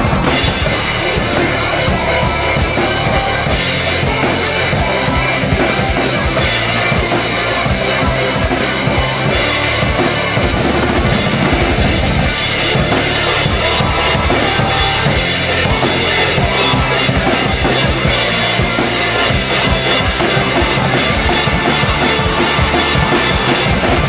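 Acoustic drum kit played in a fast heavy-metal pattern: a constant wash of cymbals over kick drum and snare hits, without a break.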